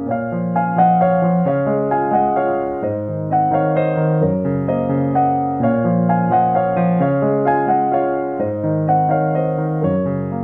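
Background piano music: a slow melody of single notes over longer held low notes.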